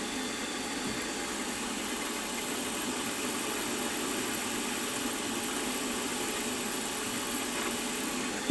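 Milling machine spindle running steadily while a small 2.05 mm (No. 46) drill is fed slowly and gently into a hole in the part.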